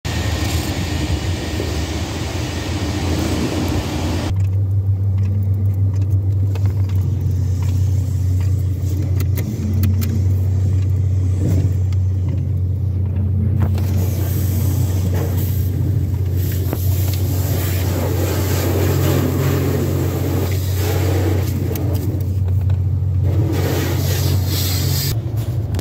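A car's engine running, heard from inside the cabin. A broad rush cuts off about four seconds in, leaving a steady low engine hum. Later, water from an attendant's hand-held spray wand hits the car body and windshield at times.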